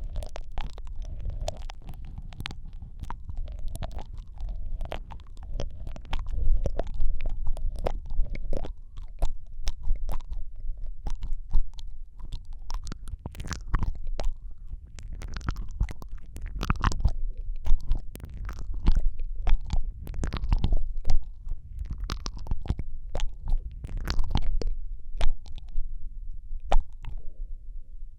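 Wet mouth sounds made right against a Rode microphone: a rapid, irregular run of sharp wet clicks and smacks over a deep, close-miked low rumble.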